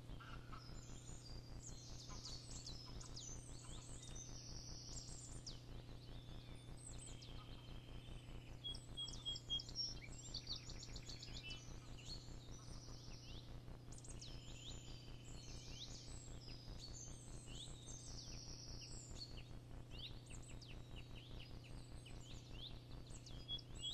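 Several small birds chirping and trilling in many short high calls, over a faint steady low hum.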